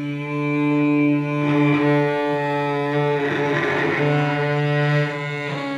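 Three cellos, two acoustic and one electric, bowing a sustained note together on the D string with firm bow pressure, with a few bow changes. The tone turns grainier and scratchier for a moment about three seconds in.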